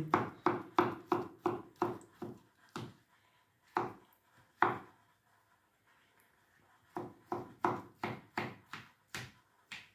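Kitchen knife chopping peeled potatoes on a cutting board: a run of sharp knocks about three a second, a pause in the middle broken by two single cuts, then another run of knocks.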